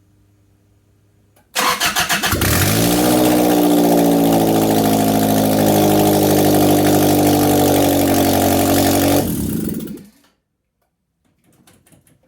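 Freshly rebuilt Toyota 1ZZ 1.8-litre four-cylinder engine with forged internals and no exhaust fitted: cranks briefly about a second and a half in, catches and revs up, runs loud and steady for about seven seconds, then is shut off and dies away. This is its first start after the rebuild, and it runs rattly and raspy to the owner's ear.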